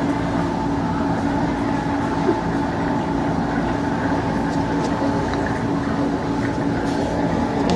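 Steady mechanical drone of aquarium machinery, the tank's pumps and filters running, with a few constant low tones. A single light knock about two seconds in.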